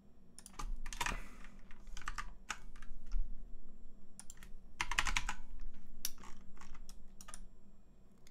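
Typing on a computer keyboard: quick keystrokes in several short bursts with pauses between them.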